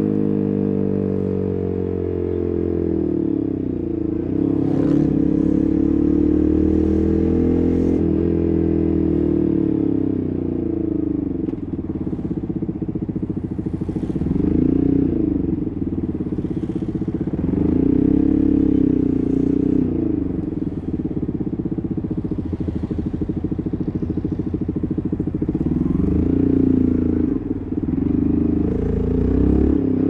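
Yamaha MT15's single-cylinder engine running through an SC Project full-system exhaust while being ridden, its pitch rising and falling over and over as the throttle opens and closes.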